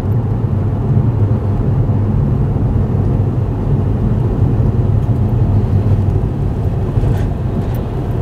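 Steady low engine and road hum of a car driving, heard from inside its cabin.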